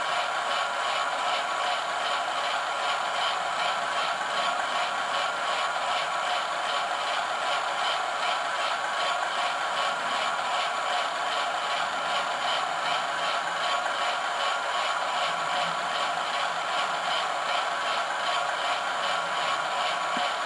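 Hornby class 08 shunter's TTS sound decoder playing the diesel engine running through the model's small speaker: a steady, thin-sounding engine beat with no deep bass.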